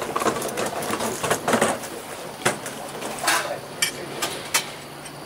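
Scattered clinks and knocks of crockery being handled, several close together in the first second and a half, then single ones every half second or so.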